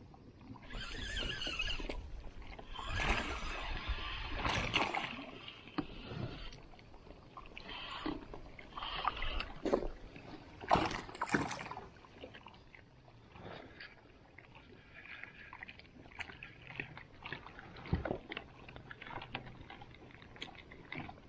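Water sloshing and splashing around a kayak, in irregular bursts, with scattered sharp knocks.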